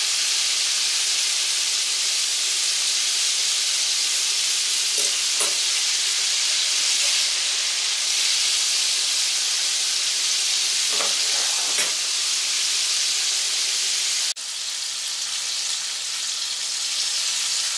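Chicken wings and tenders frying in hot oil in a cast iron skillet: a steady, even sizzle with a few faint brief clicks. It breaks off for an instant about fourteen seconds in and carries on a little quieter.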